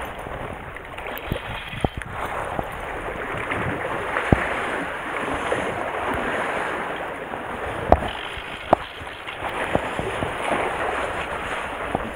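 Sea water washing and sloshing among concrete tetrapod blocks, swelling and easing, with wind on the microphone. A few sharp knocks sound through it.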